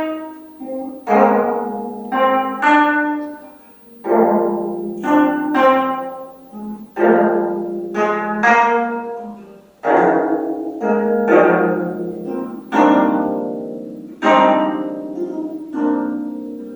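25-string gayageum (Korean zither) played solo: plucked notes and chords, about one attack a second, each ringing out and fading before the next.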